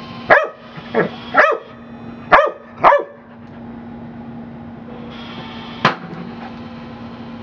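Pit bull terrier barking: five sharp barks in quick succession over the first three seconds, then one more sharp sound about six seconds in.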